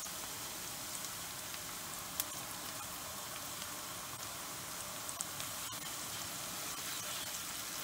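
Chopped onion, garlic and bay leaves frying gently in olive oil in a pan: a steady soft sizzle with a few faint pops, the onion sweating.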